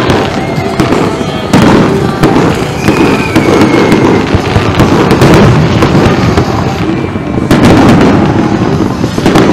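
Aerial fireworks going off in quick succession: sharp bangs of bursting shells over continuous crackling. The heaviest bangs come about a second and a half in and again a little before the end.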